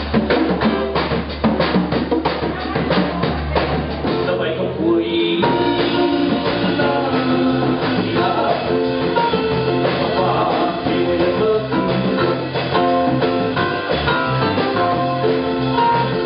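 Live band music: drum kit and congas over electric bass keep up a busy percussive groove, then after a short break about five seconds in, sustained plucked-string melody lines and a singing voice come in over the rhythm section.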